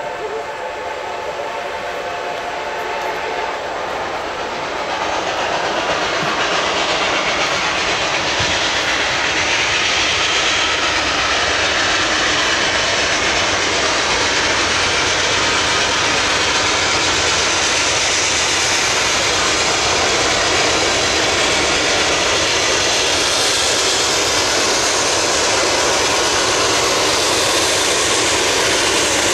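A steam locomotive's whistle dies away over the first few seconds. Then the exhaust and running noise of Reading & Northern 425, a 4-6-2 Pacific steam locomotive, grow louder as it approaches at track speed. From about five seconds in it holds a steady loud roar.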